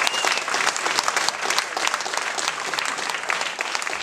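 Audience applauding steadily, many hands clapping, after a sung performance.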